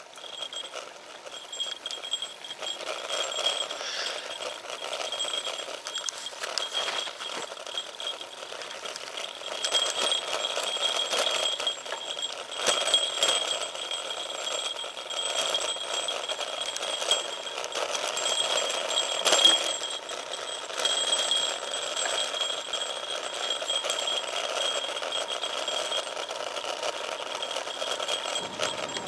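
Road bike rolling over rough pavement, recorded from its handlebars: tyre and road noise with frequent rattling and clicking knocks, under a thin steady high whine.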